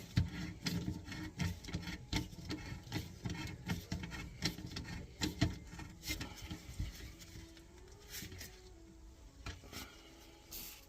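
Handling noise from work under a kitchen sink at a garbage disposal's drain fittings: irregular clicks, taps and knocks with rubbing and rustling. It is busy at first and settles to fewer, quieter scuffs after about seven seconds.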